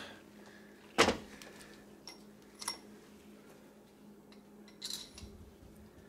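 A sharp metallic knock about a second in, then a few lighter metal clinks with a brief ring, as the just-removed automotive A/C compressor is handled. A faint steady hum runs underneath.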